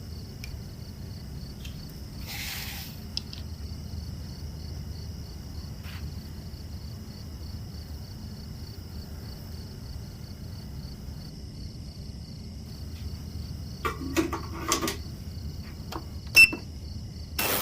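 Small clicks and taps of watchmaker's tools at a workbench: a brief hiss about two and a half seconds in, a cluster of light clicks near the end and one sharp click, over a steady low hum and a faint high whine.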